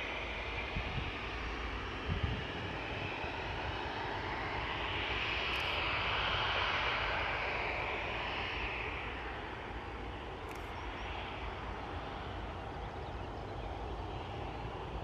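Airbus A330-300 jet engines at high thrust, a steady rushing roar that swells to its loudest about six seconds in and then eases off.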